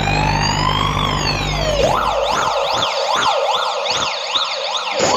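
Siren sound effect played loud through a DJ sound system: a slow wail glides up and then down, and about two seconds in switches to a fast up-and-down yelp. The steady bass underneath drops out at the switch, leaving a few low thumps.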